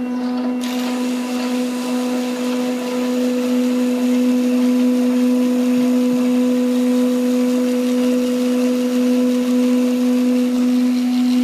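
Small electric motor of a hobby robotic car washer running with a steady, even hum; a hiss joins about half a second in and carries on with it.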